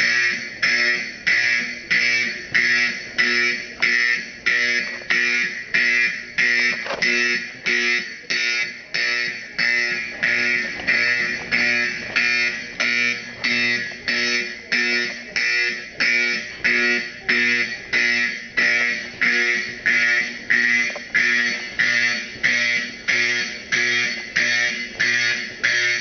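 Simplex 4050 fire alarm horn sounding the march-time code, about two evenly spaced pulses a second, each fading slightly before the next. This is the system's alarm signal.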